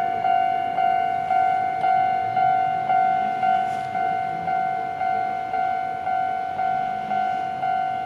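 Japanese railway level-crossing warning bell ringing steadily at about two strikes a second, each clear bell-like strike fading before the next: the crossing alarm sounding because a train is approaching.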